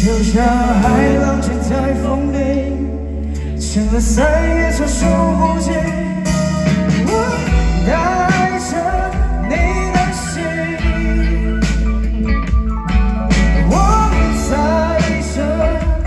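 Live band performing a song through the stage PA: a singer over electric guitars and drums.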